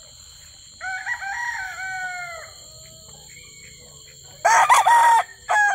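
Gamecock crowing: one long crow that bends down in pitch at its end, then about four and a half seconds in a louder, harsher call, and a short call just before the end.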